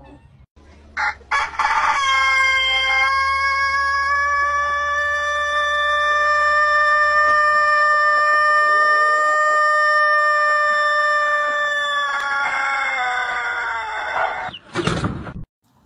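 Rooster crowing one extremely long crow. After a couple of short rising notes it holds a single steady note for about ten seconds, which slowly fades and bends down in pitch before breaking off. A short loud burst follows near the end.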